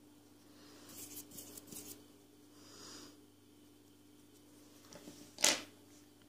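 Makeup brush rubbing eyeshadow into a crocheted yarn toy: a few short scratchy strokes about a second in, a softer swish near three seconds, and one louder brief scrape or bump at about five and a half seconds. A faint steady hum runs underneath.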